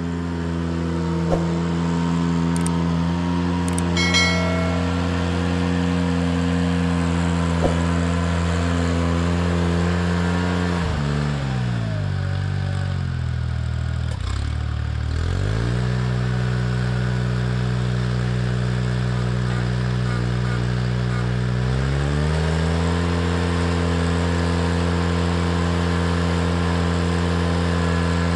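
Ventrac 4520 compact tractor engine running at high speed, slowing down to a low speed about eleven seconds in, then revving back up in two steps. A few light knocks sound over the engine in the first eight seconds.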